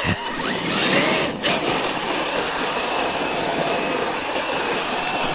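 Traxxas Maxx V2 RC monster truck driving on gravel: a faint high whine from its brushless electric motor over a steady hiss of tyres and loose gravel.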